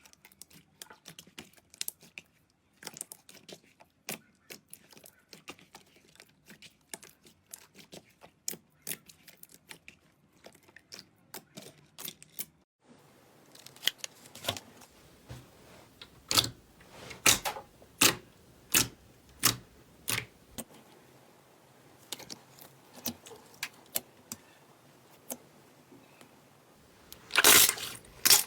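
Slime being squeezed and poked, making many small sharp clicks and crackling pops. About thirteen seconds in, the sound changes to louder pops spaced about a second apart, and near the end there is a loud burst of crackling.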